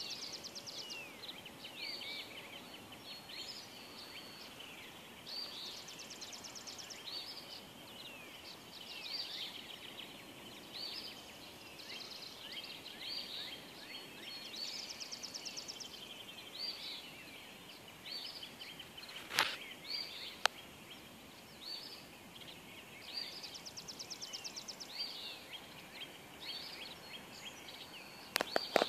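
Several songbirds singing in a dawn chorus: many short down-slurred whistled notes repeat about once a second, and a buzzy trill comes in roughly every nine seconds. A couple of sharp clicks cut through about two-thirds of the way in, and again near the end.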